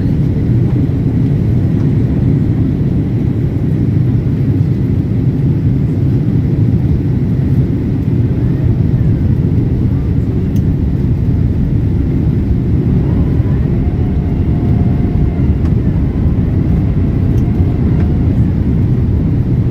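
Steady cabin roar inside a Boeing 767 airliner on approach, from engine and airflow noise, deep and unbroken throughout.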